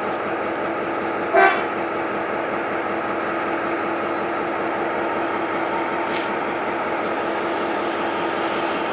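G22 diesel-electric locomotive running steadily while shunting, with a steady hum through its engine noise. It gives one short toot of the horn about a second and a half in, and a brief high hiss comes about six seconds in.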